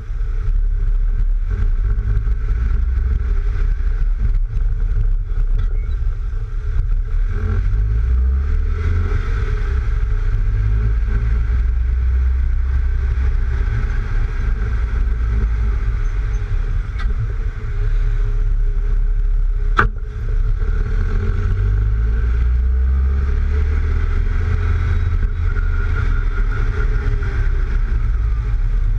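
Lowered Mk3 VW Golf driving along a street, heard from a camera mounted low beside the front wheel: a steady low rumble of wind noise and road noise over the running engine. The owner puts the wind noise down to the roof racks. One sharp knock comes about two-thirds of the way through.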